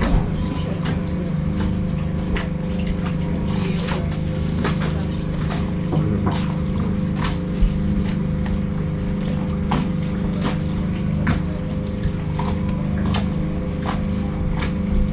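A sail yacht's engine running at a steady drone, with irregular light clicks and knocks scattered over it.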